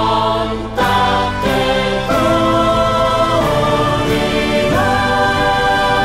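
Closing bars of an Easter hymn: held, choir-like chords that change every second or so, with a high note sustained over the last second.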